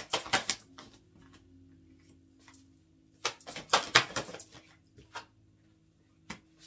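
Oracle cards being handled: two flurries of quick papery clicks and slaps, one at the start and a longer one about three seconds in.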